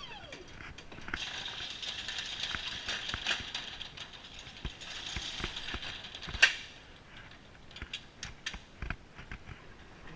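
Semi-trailer landing gear being hand-cranked: a run of ratcheting, gear-like clicks and metallic rattling, with one sharp clank about six and a half seconds in, then scattered clicks.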